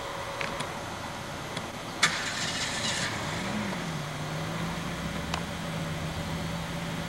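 Car engine starting: a sudden hiss of noise for about a second, then the engine catches, revs up briefly and settles to a steady idle.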